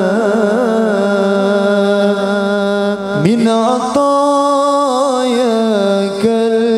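A man's voice singing an Islamic sholawat in long, ornamented held notes; about three seconds in it slides up to a higher note and settles back down near the end.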